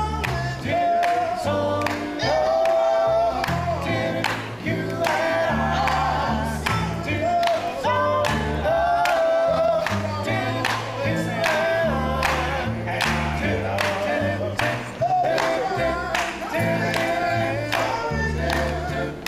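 A group of men singing in harmony, with a low bass line from a plucked upright double bass and a steady beat underneath.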